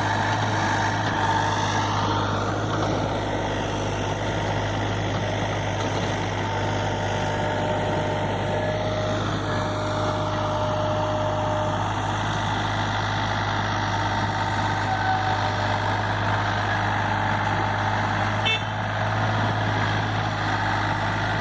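SANY SY35U mini excavator's diesel engine running steadily at a constant pitch, with a faint steady tone for a few seconds in the middle and a brief click near the end.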